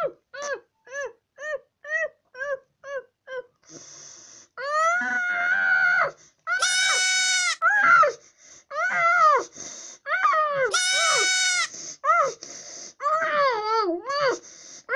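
A boy's voice with a mouth full of sour candy, lips shut: short rhythmic hums about twice a second, then longer strained whines and moans, two of them high-pitched squeals, as he reacts to the sourness of six lemon sour candies held in his mouth.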